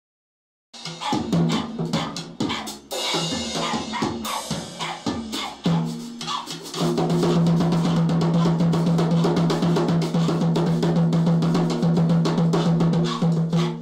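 Acoustic drum kit played in a busy pattern of snare, bass drum and crashing cymbals, with a dog pawing at the cymbals. It starts about a second in, and from about six seconds in a steady low note holds underneath the drumming.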